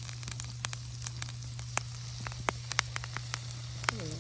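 Shishito peppers and eggplant sizzling in bacon fat in a pan over a campfire, a steady hiss broken by frequent sharp, irregular pops and crackles.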